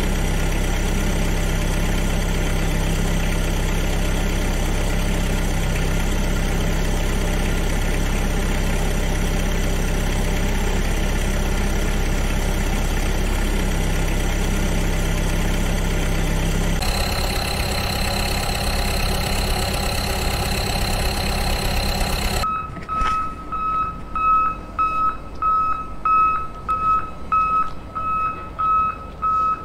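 Truck engine sound effect running steadily at idle, changing about 17 seconds in when a higher whine joins it. After about 22 seconds the engine gives way to a reversing alarm beeping steadily, about two beeps a second.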